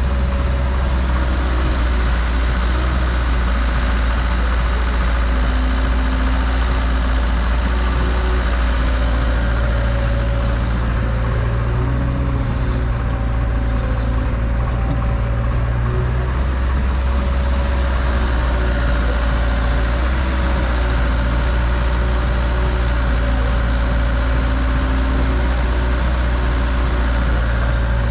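Diesel engines of a backhoe loader and tractors running steadily at a loading site, a constant low drone with shifting tones above it.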